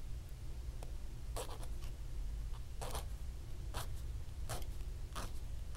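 Needle file rasping on a small metal charm in about five short strokes under a second apart, filing the leftover burr off where the top loop was cut.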